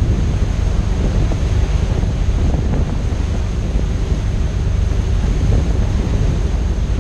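Wind buffeting the microphone on a moving boat at sea, over a steady rush of sea water.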